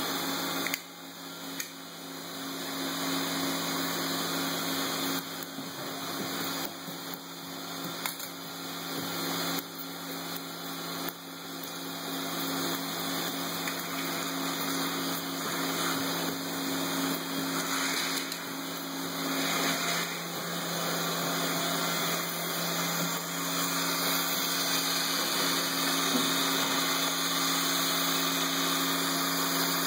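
Small Lego electric motor running steadily, driving a gear train and pulley that wind in the cord hauling a Lego funicular car, a continuous whirring hum with a few faint clicks in the first half.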